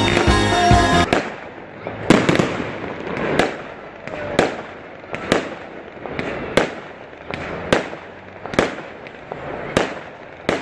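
Background music for about the first second, then fireworks exploding in the sky: sharp bangs about once a second over a noisy background.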